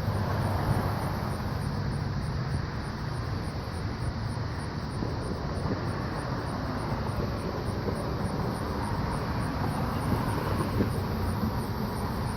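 A steady, low droning rumble in the open air, like distant aircraft or traffic, with a faint high ticking about three or four times a second.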